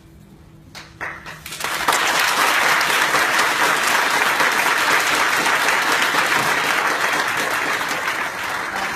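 Audience applauding: a few scattered claps about a second in, then dense, steady applause from about two seconds in that eases slightly near the end.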